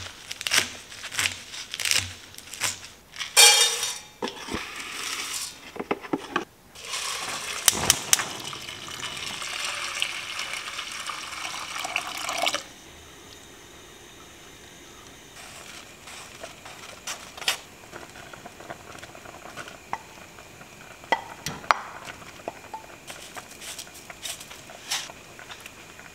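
Clinks and knocks of kitchenware, then herbal broth poured in a steady stream into an enamel pot of rolled oats for about five seconds, stopping abruptly. After that come scattered light knocks of a wooden spoon stirring in the pot.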